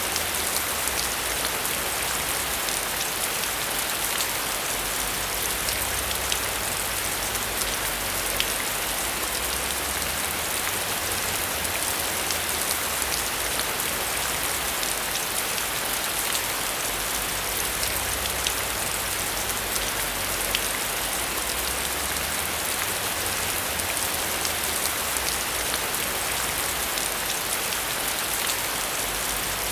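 Steady heavy rain: a dense, even hiss with many individual drops ticking sharply through it.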